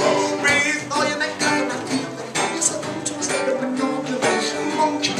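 Live acoustic folk-rock band playing: strummed acoustic guitar and a second small plucked string instrument, with a male lead vocal at a microphone.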